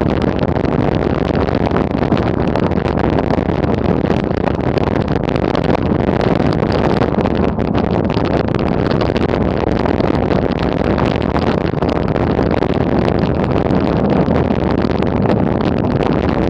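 Wind rushing over an action camera's microphone and bicycle tyres rumbling on a gravel track, with small knocks and rattles over the bumps, as the bike coasts downhill at about 22 km/h without pedalling.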